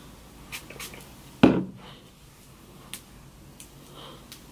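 Handling noises of a hair-product bottle and wet hair: a few light clicks and one louder thump about a second and a half in.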